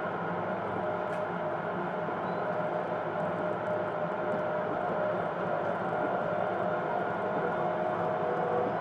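Running noise inside a Hokuetsu Express HK100-series electric railcar, motor car MoHa HK100-6, travelling at steady speed. Wheels rumble on the rails under a steady whine from the running gear.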